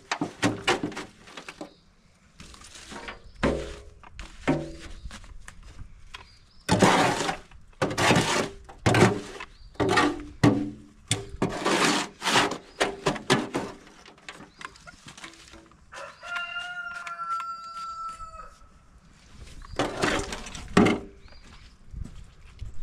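Repeated crunching and scraping of lumpy biochar and wood ash being moved and dumped, in short irregular bursts. A rooster crows once, from about sixteen seconds in for two to three seconds.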